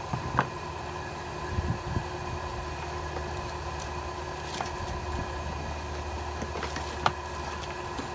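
Steady machine hum with a faint whine, under a few light knocks in the first two seconds as the plastic-and-metal impact wrench is set down on a wooden workbench, and a sharp click about seven seconds in.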